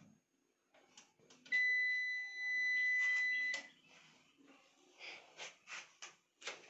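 A single steady electronic power-on beep lasting about two seconds, starting about a second and a half in, as the computer setup is switched on. A few clicks come just before and at its end.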